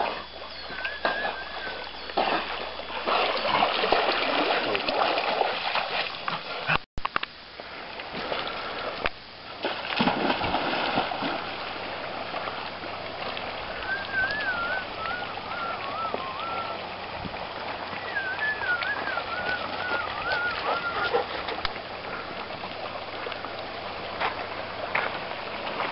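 Water splashing and rippling around a swimming dog over a steady rush of running water. The sound cuts out for a moment about seven seconds in, and two wavering high-pitched calls come in the second half.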